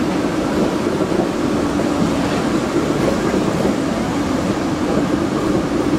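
Historic HTM PCC tram running past on curved track: a steady noise of wheels on the rails.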